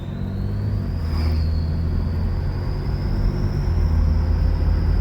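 Turbo whistle from a 2011 BMW 335d's triple-turbocharged 3.0-litre inline-six diesel under way: a thin high whistle that climbs in pitch about a second in and keeps rising slowly, over a steady low engine rumble.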